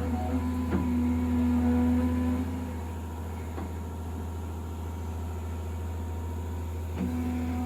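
Diesel engine of heavy earthmoving machinery running steadily. A louder steady whine sits over it for the first two and a half seconds, fades, and returns about seven seconds in, with a few light clanks.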